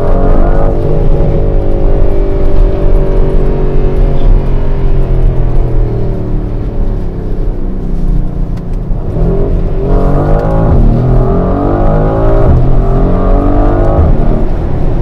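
Mercedes-AMG GLC 63 S Coupé's 4-litre twin-turbo V8, heard from inside the cabin, accelerating hard from low speed in Sport Plus mode. In the second half the revs climb and drop again several times in quick succession as the gearbox shifts up.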